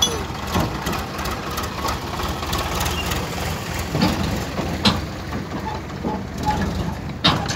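Sonalika tractor's diesel engine idling steadily, with several short sharp knocks, the loudest about five seconds in and near the end.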